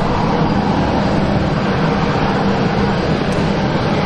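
Twin-engine narrow-body airliner taxiing on idle thrust: a steady jet-engine whine and rumble with an even low hum.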